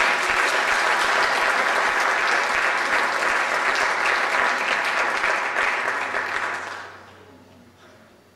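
Audience clapping for several seconds, dying away about seven seconds in.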